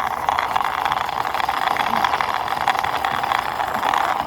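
Toy army tank pushed by hand, its plastic wheels rolling and rattling over a surface as a steady gritty noise made of many fine ticks.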